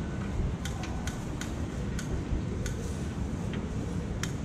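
Light, irregular clicks of a metal pick tapping and scraping a takoyaki griddle as the balls are turned, over a steady low rumble.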